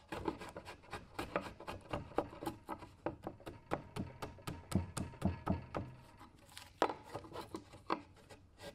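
A wide chisel is pushed by hand along the cheek of a cypress tenon, splitting the waste off along the grain. It makes a quick, irregular run of cracking clicks as the wood fibres split and shear, and the clicks thin out after about six seconds.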